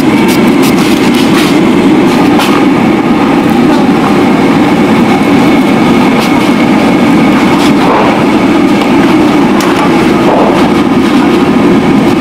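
Steady roar of a high-pressure gas burner heating a large pot of boiling water. In the first couple of seconds, a few short strokes of a carrot being sliced on a plastic mandoline sound over it.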